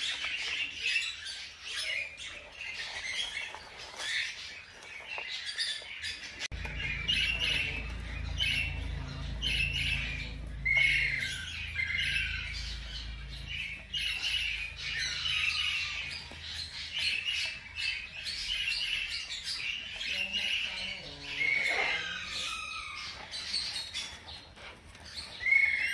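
Newborn hamster pups squeaking: a steady stream of high, thin chirps, several of them sliding downward in pitch.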